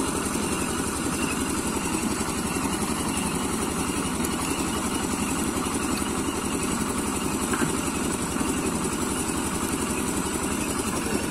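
Small engine running steadily at a constant pace, driving a water pump that draws water out of the pond through a suction pipe.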